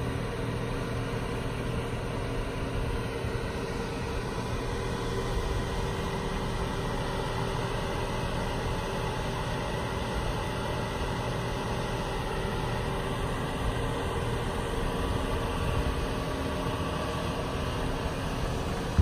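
Ford Explorer's engine idling as the SUV creeps slowly along at walking pace: a steady, even hum.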